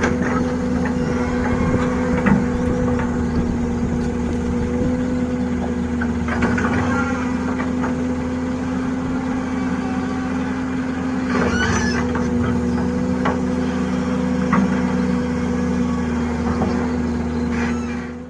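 Excavator's diesel engine running steadily at a constant pitch while it works, with scattered short clanks and scrapes.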